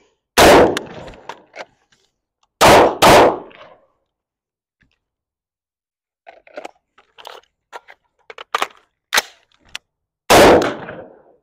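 Four loud gunshots, each trailing off over about a second: one about half a second in, two close together around three seconds, and one near the end. Between them, quieter short clicks and clacks of weapon handling.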